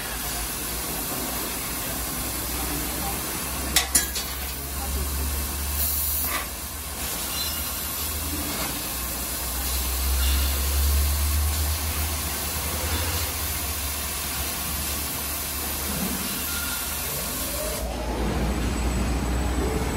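Fibre laser cutting machine cutting metal plate: a steady hiss of the assist-gas jet over a low machine hum, with a couple of sharp clicks about four seconds in. Near the end the hiss drops away as the cut finishes, leaving the hum and a rougher low running noise.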